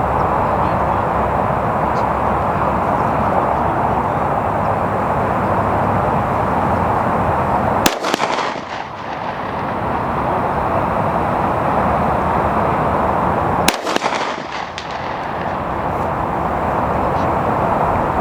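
Two suppressed rifle shots from an AR-15 in 350 Legend fitted with a Savage AC350 suppressor, about six seconds apart, each a sharp crack with a short tail. A steady rushing noise runs underneath.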